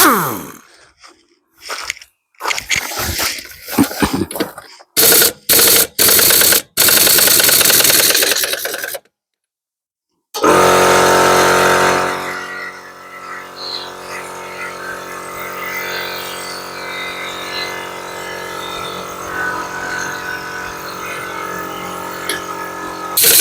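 Pneumatic impact wrench firing in a few short bursts and then one longer burst, undoing wheel nuts, after some clattering. A second later the air compressor starts and runs steadily, loud at first and then settling lower.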